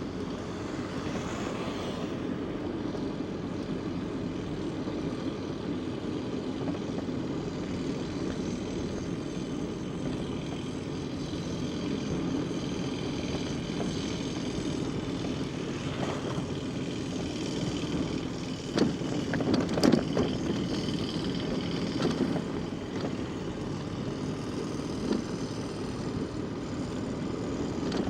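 Steady rumbling noise of a bicycle ride, from wind on the microphone and the tyres rolling over the road, with a few sharp knocks about two-thirds of the way through.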